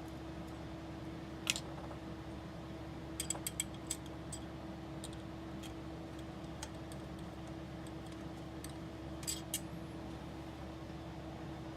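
Small clicks and taps of hard plastic and metal parts being handled and fitted on a scale RC truck's axle: one click about a second and a half in, a quick cluster a few seconds in, and another pair near the end, over a steady hum.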